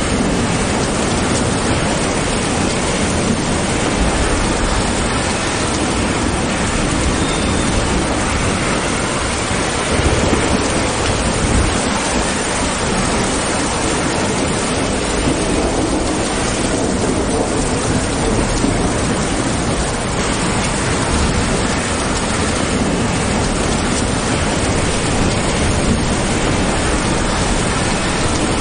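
Steady rain falling through a leafy tree canopy, with low thunder rumbling now and then, most strongly about a third of the way through.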